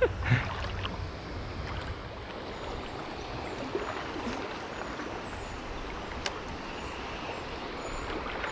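Creek water rushing steadily, the stream running high after heavy rain, with a few sharp clicks at the start and one more about six seconds in.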